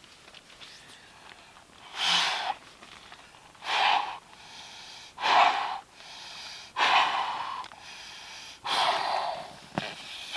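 A person blowing hard into the valve of an inflatable camping pillow to inflate it: five strong exhaled breaths, about one every one and a half seconds.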